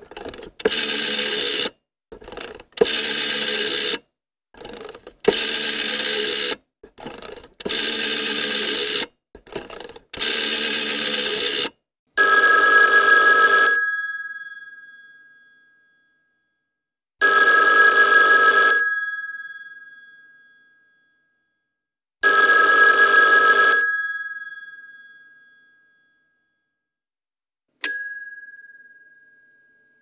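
Rotary telephone dial being turned and whirring back digit after digit as a number is dialed, then the phone's bell rings three times, about five seconds apart, each ring fading out. A single short ding comes near the end.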